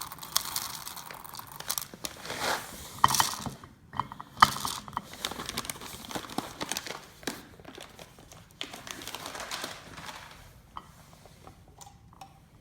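A coffee bag crinkling and rustling as whole coffee beans are poured out of it. Irregular clicks and crackles come as the beans drop into a plastic measuring cup, busiest in the first half and tapering off toward the end.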